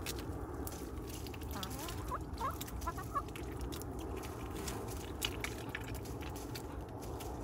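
Hens feeding at a plastic tub of water hyacinth: a scatter of sharp pecking clicks, with a few short clucks about two to three seconds in.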